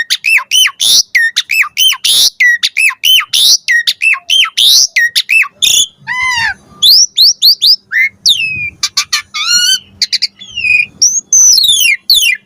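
Asian pied starling (jalak suren) singing: a fast run of repeated arched whistled notes, about three a second, then a varied string of rising and falling whistles and sweeping calls from about halfway through.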